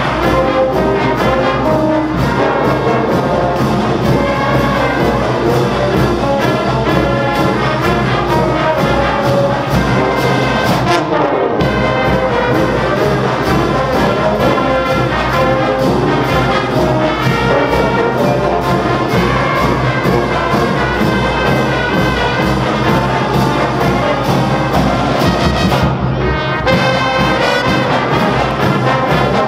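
Marching band brass section playing, sousaphones, trumpets and trombones together over a steady percussion beat. The high percussion drops out briefly twice, about eleven and twenty-six seconds in.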